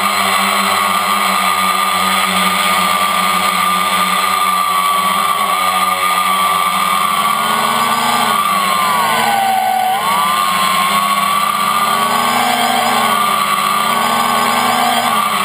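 Multirotor's electric motors and propellers, heard from the craft's own frame: a steady high whine that dips and rises in pitch several times from about eight seconds in as the throttle changes in flight.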